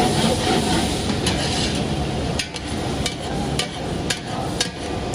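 Chopped capsicum and green chillies sizzling in a cooking pot, with a metal ladle knocking against the pot several times as they are stirred.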